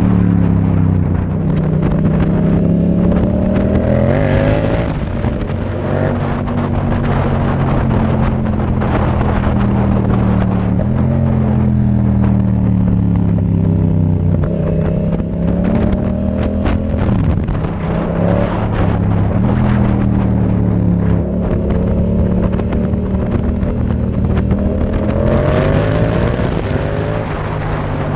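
Yamaha MT-07's parallel-twin engine breathing through a Mivv Delta Race aftermarket exhaust, heard on board while riding. The engine note rises and falls in pitch several times as the bike accelerates and slows, over wind rush.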